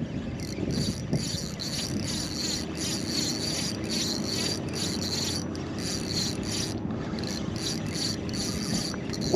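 Fishing reel being cranked, a rhythmic rasp about three times a second over a steady low hum.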